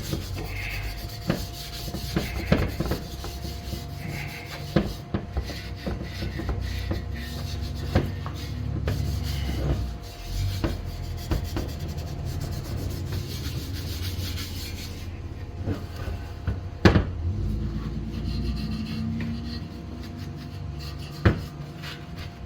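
Scooter exhaust pipe being scrubbed by hand with an abrasive pad, rubbing strokes that rasp steadily, with occasional knocks, one loudest about two-thirds of the way through. The scrubbing takes grime and surface rust off the pipe before it is painted.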